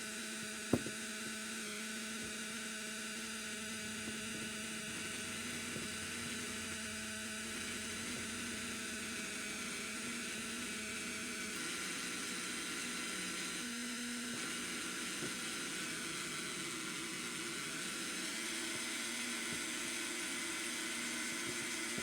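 Chaney C4722 analog 10-note sound synthesizer kit putting out a steady electronic drone of several held tones over a hiss through its small speaker, with one sharp click about a second in and the tones shifting a little about twelve and fourteen seconds in.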